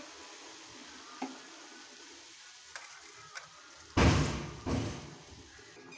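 Tea boiling in a steel saucepan: a faint, steady bubbling hiss with a few small ticks. About four seconds in, a sudden loud rush of noise fades away over about a second, and a second shorter one follows.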